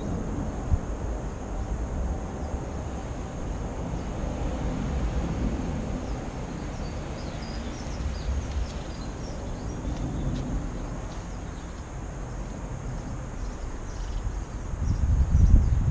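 1954 Matchless G3/LS single-cylinder four-stroke engine running at a steady idle, with its first run after a rebuild under way. It gets louder near the end.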